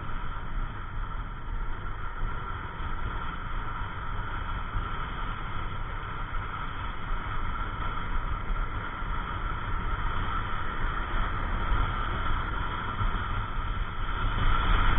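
Yamaha NMAX 155 scooter under way: steady wind rush and rumble on the mounted camera's microphone mixed with the scooter's single-cylinder engine and road noise, growing louder near the end.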